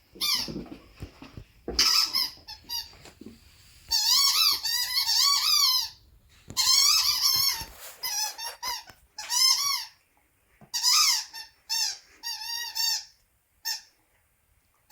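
German shepherd puppy whining in a string of high, wavering cries, some drawn out for a couple of seconds and others short, with brief pauses between them.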